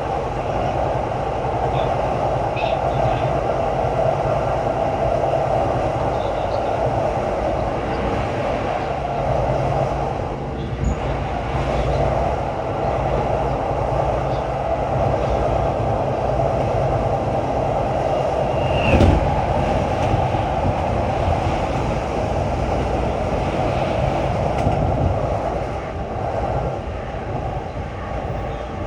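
Tokaido Line commuter train running along the track, heard from inside the carriage: a steady rumble of wheels on rails, with one sharp knock about nineteen seconds in.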